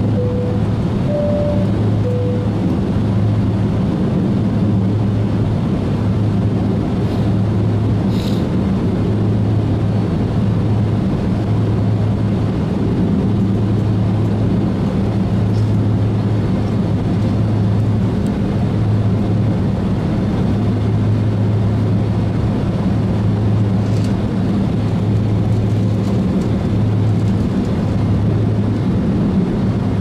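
Steady engine noise inside a jet airliner's cabin, a constant low hum over a rushing background that neither rises nor falls.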